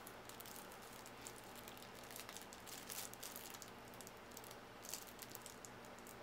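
Faint crinkling and small irregular clicks of plastic shrink wrap being picked at and peeled off a deck of game cards.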